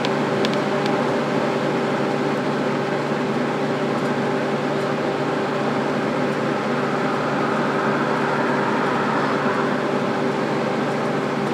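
A steady mechanical hum with a low drone, unchanging throughout, with a few faint clicks in the first second.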